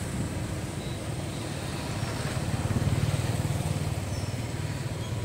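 Road traffic: a motorbike's engine running as it passes on the road, a steady low hum that swells a little about halfway through.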